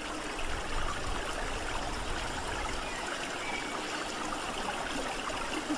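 Steady sound of running water, even and unbroken, with no distinct knocks or calls.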